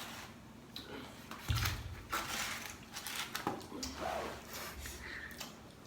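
Close-up eating sounds: irregular crunchy bites and chewing of firm, sour Marian plum fruit.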